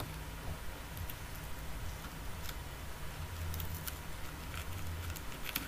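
Faint scattered clicks and light scrapes of a small screwdriver tip against a smartphone's circuit board and plastic frame as the mainboard is worked loose, over a low hum.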